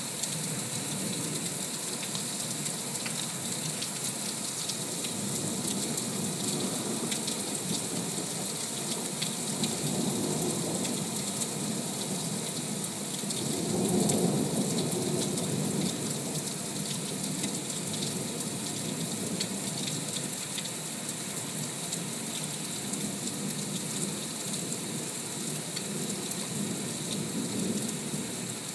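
Heavy rain falling steadily in a thunderstorm, with a low rumble of thunder swelling about halfway through.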